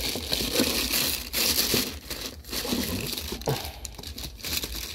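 Thin plastic wrapping crinkling and rustling irregularly as a wrapped unit is handled and lifted out of a cardboard box.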